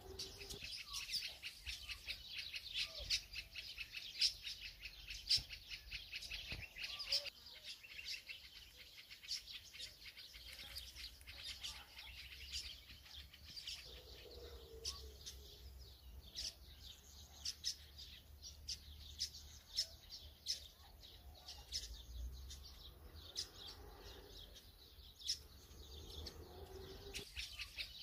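Small birds chirping: rapid runs of short high-pitched chirps, densest in the first few seconds, thinning through the middle, and picking up again near the end.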